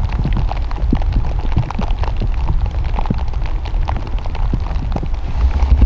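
Rain falling close to the microphone: many small, irregular taps over a steady low rumble.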